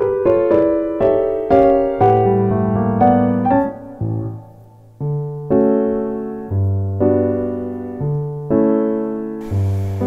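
Background piano music: a gentle run of single notes and chords that dies away briefly about four seconds in, then resumes with slower chords.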